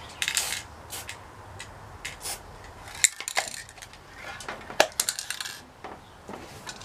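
Brief hissing bursts from an aerosol spray-paint can, the first about a quarter-second in, mixed with scattered sharp clicks and knocks, the loudest near the middle and a little later.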